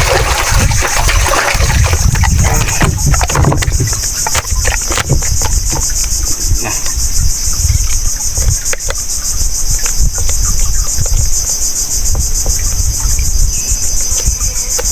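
Steady, high-pitched chorus of insects, with a loud low rumble and scattered small clicks beneath it.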